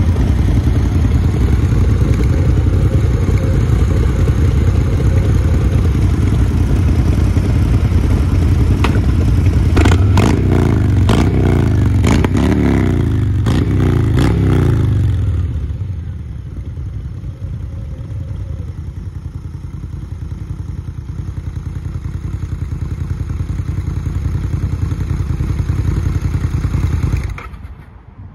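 Custom Harley-Davidson V-twin motorcycles running loud through their exhausts. About ten seconds in, the black Fat Boy 114's Milwaukee-Eight 114 engine is blipped about five times, each rev quickly falling away. Then the sound settles to a quieter idle that cuts out near the end.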